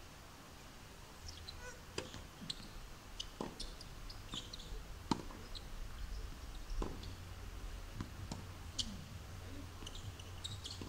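Tennis ball struck or bounced on a hard court: a few sharp knocks roughly a second and a half apart, with short high chirps scattered through and a low rumble of wind on the microphone.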